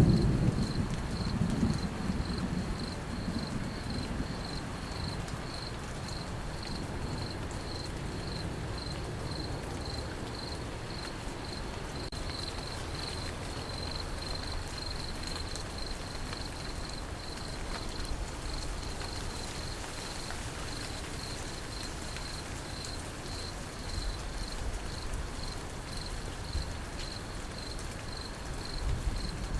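Crickets chirping in a steady, even rhythm over the soft hiss of light rain, with a low thunder rumble dying away in the first few seconds.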